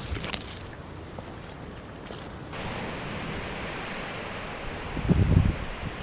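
Strong wind blowing, a steady rushing that grows about halfway through, with heavy gusts buffeting the microphone near the end.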